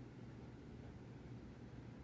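Near silence: quiet room tone with a faint steady low hum.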